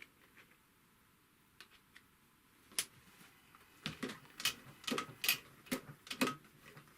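Mechanism of a Typical GC 2605 industrial walking-foot sewing machine being turned over by hand just after oiling, giving a few scattered clicks and then a quicker run of mechanical clicks and ticks in the second half; the machine now turns noticeably easily.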